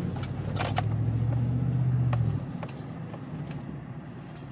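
GMC Sierra's V8 engine running under load with a deep, steady drone, which drops off abruptly a little over two seconds in, as if easing off the throttle, leaving a quieter low hum. Scattered light clicks sound throughout.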